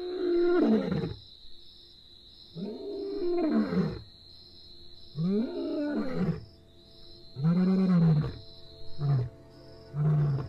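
Lion roaring: four long, moaning roars that fall in pitch at the end, spaced a couple of seconds apart, then shorter grunting calls near the end of the sequence.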